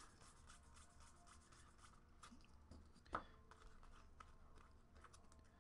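Faint rubbing and light ticking of paper baseball cards being slid one past another through the hands, with one louder click about three seconds in.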